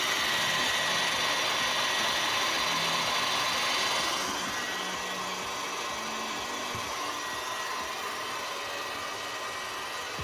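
Heat gun blowing hot air in a steady rush with a faint whine, worked over the edge of a car headlight to soften the glue that holds the lens. It drops somewhat quieter about four seconds in and runs on.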